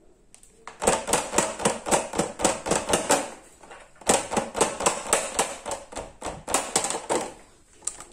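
Plastic acetate egg mold rapidly knocked and rattled against the glass baking dish under it, about six knocks a second in two runs with a short pause between, to level the freshly poured chocolate and shake out air bubbles.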